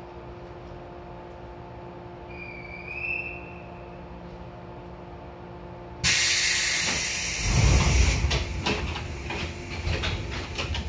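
Air-operated doors of a 415-series electric train car closing: a sudden loud hiss of compressed air about six seconds in, then the door leaves slide shut with heavy thuds and a run of rattles and clicks. Before that, a steady hum from the stopped car, with a short whistle about three seconds in.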